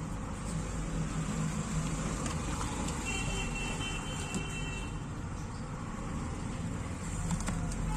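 Steady background road-traffic noise with a low hum, and a faint high tone for about a second and a half a few seconds in. A few faint clicks near the end.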